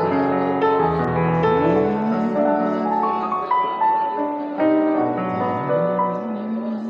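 Slow worship music on a keyboard with a piano sound: sustained chords under a simple stepped melody.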